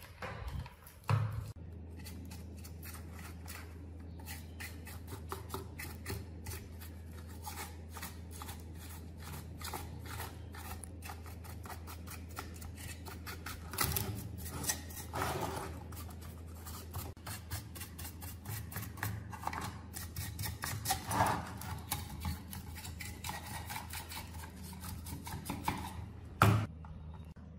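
Dry paintbrush bristles scrubbing caked dirt and rust off a metal mini air blower's housing in quick repeated strokes, with a knock as the blower is handled about a second in and again near the end.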